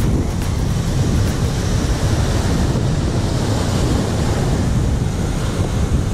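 Small surf waves breaking and washing up a sandy beach, mixed with wind buffeting the microphone as a steady low rumble.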